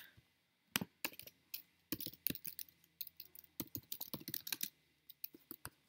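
Typing on a computer keyboard: irregular keystrokes, with a short pause near the end.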